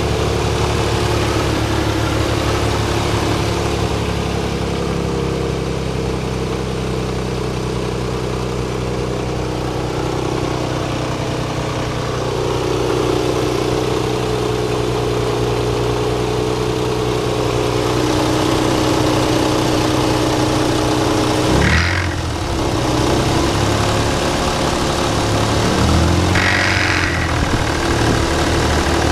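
Nissan 300ZX Z32's 3.0-litre V6 idling steadily, its idle speed shifting slightly now and then, with two short knocks late on. It runs smoothly now that the cut coil-pack wires are repaired, which the owner takes for the misfire being cured.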